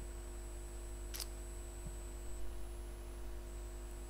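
Steady low electrical hum with one short, sharp click about a second in.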